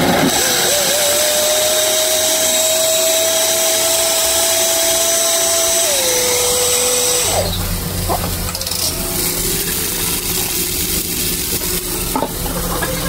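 Electric blender running, blending cooked tomatillos for salsa: a steady motor whine that drops in pitch about six seconds in and cuts off about a second later. A lower hum and a few clicks follow.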